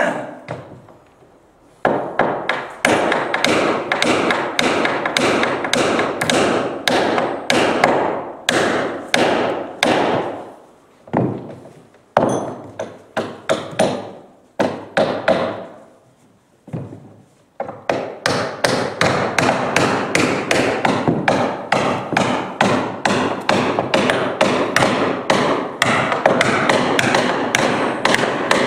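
Hand hammers tapping in a steady run of sharp knocks, several a second, driving a chisel and square boat nails (funakugi) into the wooden bottom planks of a Japanese river boat. There are short pauses around the middle, and the blows come thicker from about two-thirds of the way in.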